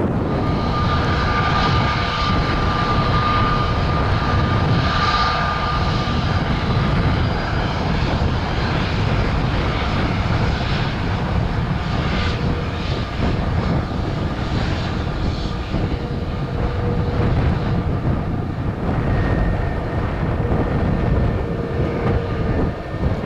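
Airbus A320neo jet engines at take-off thrust during its take-off roll: a steady, loud jet rumble with a thin high whine on top.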